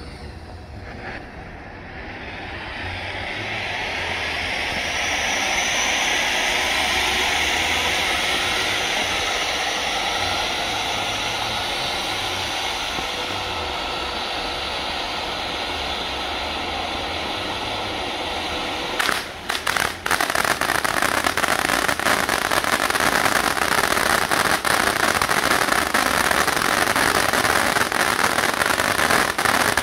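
Pyro Predator 'Maximum Velocity' firework fountain burning: a steady rushing hiss of sparks that swells over the first few seconds. About two-thirds of the way through it sputters briefly, then turns into a dense crackle as the crackling-glitter stage fires.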